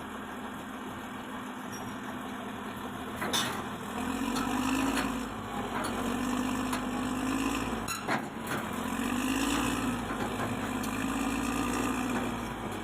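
Heavy diesel engine running, then from about four seconds in its pitch and loudness rising and falling in about four repeated swells. There are two sharp clicks, one shortly before the swells begin and one midway.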